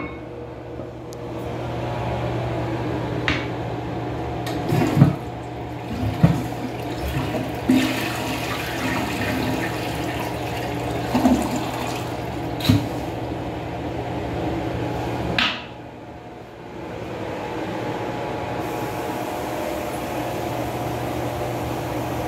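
Vortens Murano toilet flushing: water rushes into the bowl and drains away, with several short knocks, over a steady low hum.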